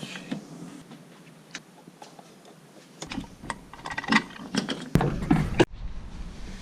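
Scattered light clicks and knocks of things being handled, most likely a search for a key. They are sparse at first and come thick and fast from about three seconds in, with a few dull thuds, then cut off suddenly.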